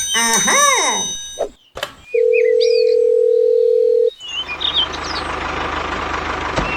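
A few cartoon-style sliding sound effects, then a steady electronic beep held for about two seconds, then a small motor starting to whir steadily about four seconds in, with faint bird chirps.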